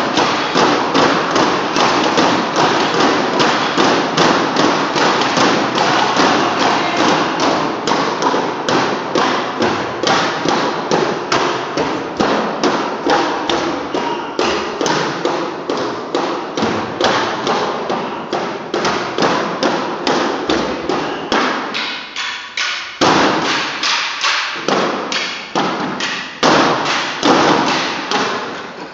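Broomsticks knocked on a wooden stage floor by a group playing together, a steady rhythm of about three knocks a second with hall reverberation. A little past twenty seconds in the beat thins out into fewer, spaced hits.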